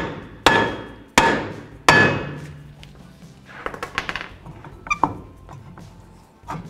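A hammer strikes a 2015 Chevy Silverado's rear brake rotor three times, about once every 0.7 s, knocking the rotor loose from the hub. The rotor rings briefly after each blow. Lighter knocks and scrapes follow as the rotor is worked back and forth by hand.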